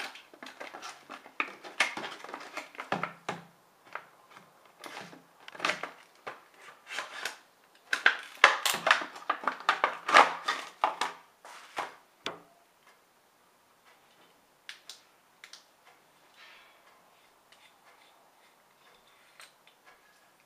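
Flashlight packaging being handled and opened, with dense crackling and crinkling for about twelve seconds, then only a few scattered clicks.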